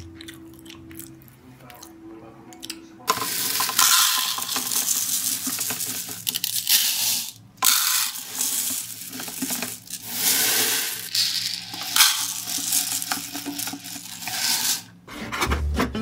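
Dry rice grains pouring into a plastic mixing bowl: a dense, steady rattling hiss that starts about three seconds in and stops shortly before the end, with a brief break in the middle.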